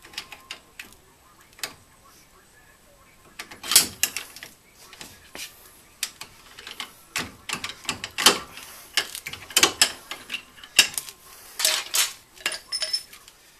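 Hand wrench turning the bolts behind a Datsun Roadster's front hub spindle: irregular metal clicks and clinks, sparse at first and busier from about three and a half seconds in.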